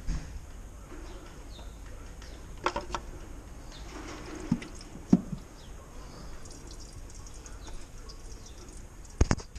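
Handling noise from working on a car's undertray: scattered sharp clicks and knocks, the loudest about five seconds in and a close pair near the end, over a steady low hum.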